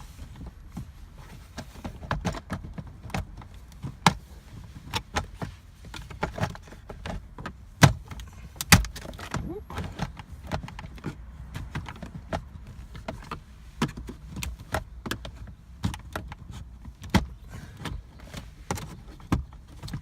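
Plastic dashboard trim of a 2005 Toyota Corolla being pried loose with a screwdriver and trim tool: irregular clicks, taps and rattles of the panel and its clips, with two louder snaps about 8 and 9 seconds in.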